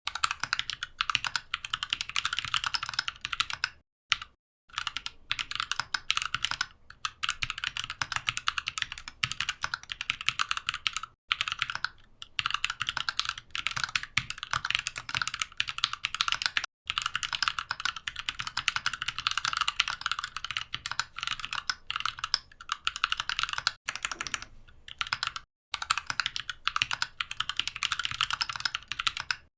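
Mechanical keyboard typed on quickly: a dense run of rapid key clicks, broken by a few short pauses.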